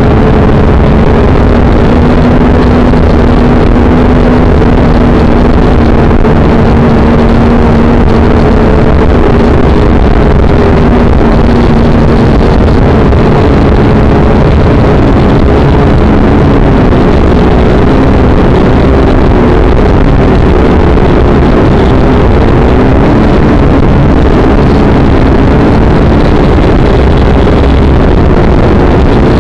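Small drone's electric motors and propellers buzzing steadily at close range as it climbs and hovers, very loud on its onboard camera's microphone. Their hum wavers in pitch and splits into several drifting tones about halfway through.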